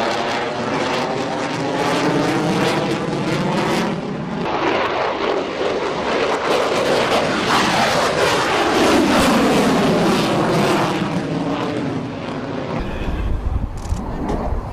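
F-22 Raptor's twin F119 turbofan engines passing overhead in a continuous jet roar. The sound swells and fades with a sweeping, phasing whoosh as the jet moves across the sky, is loudest about two-thirds of the way through, and eases off near the end.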